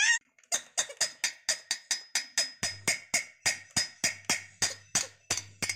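Steel plate (thali) struck over and over, an even clanging of about four strikes a second, each strike ringing, after a short rising squeal at the start. Plate-banging of this kind was done from balconies during India's Corona lockdown as a show of thanks to frontline workers.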